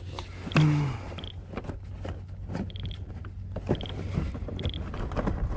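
Handling noise on a plastic kayak: a string of small knocks, clicks and creaks as gear is moved about on the hull, over a steady low rumble of wind on the microphone. A short high chirp recurs every second or so, and a brief grunt comes about half a second in.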